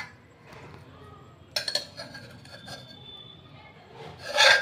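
Steel spoon clinking against a stainless steel bowl and pot as boiled rice is scooped in: a few sharp clinks about a second and a half in, a faint ringing after them, and a louder clatter near the end.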